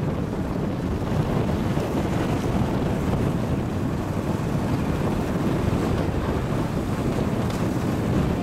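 Steady wind rushing over the microphone of a moving motorbike, with the bike's engine running underneath.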